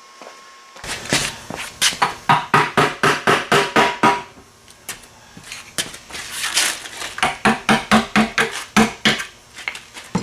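Hammer rapidly striking a metal separator tool driven between the oil pan and the block of a Corvette L79 327 small-block V8, breaking the pan's gasket seal loose. The blows come in two runs of about four a second, with a short pause between them.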